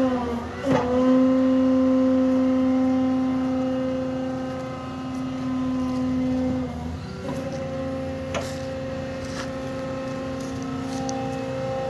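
Hydraulic machinery driving a Krupp CC4000 hydraulic demolition shear: a steady machine whine that sags briefly in pitch near the start and again about seven seconds in, with a few light clicks later on.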